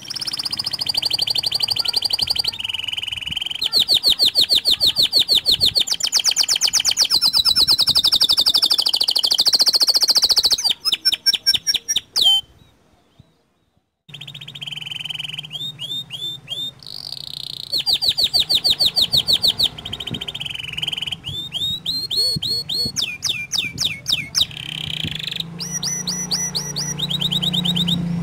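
Domestic canary singing a long song of fast trills, each phrase a rapid run of repeated notes at a different pitch, broken by a pause of about a second and a half near the middle. A faint low hum runs under the second half.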